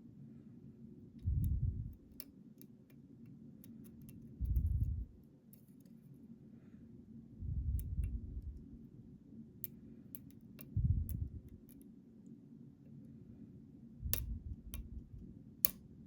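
Lock pick and tensioner working the pins of a high-security challenge lock: scattered faint metallic ticks and clicks, with a couple of sharper clicks near the end. Soft low bumps come about every three seconds.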